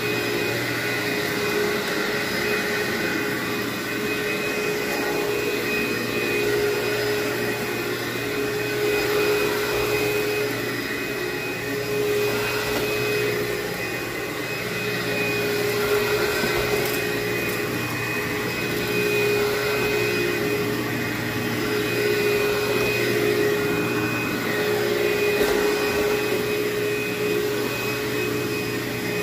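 Upright vacuum cleaner running and being pushed back and forth over carpet, a steady motor whine over rushing air. The level swells and dips gently with the strokes as it picks up dry soil, the dry-vacuuming pass before hot-water extraction.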